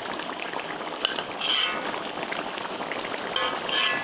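Rendang spice paste of onion, garlic, chilli and lemongrass frying in hot oil in a large wok, bubbling and sizzling with a steady crackling hiss. Two short high-pitched chirps stand out, about a second and a half in and again near the end.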